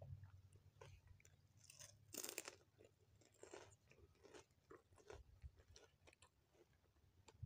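Faint, crisp clicks and crunches of fried rice being eaten with a plastic spoon, with the loudest crunch about two seconds in.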